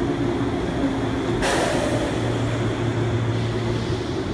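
185-series electric train coasting slowly into the platform on arrival, with a steady low hum. A sudden hiss about one and a half seconds in fades away over a second.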